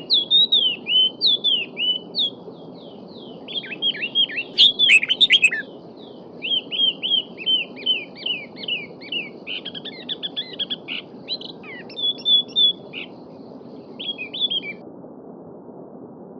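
A small songbird singing long runs of quick, downward-sweeping chirps, with short pauses, over the steady babble of a stream. A brief cluster of sharp clicks comes about five seconds in.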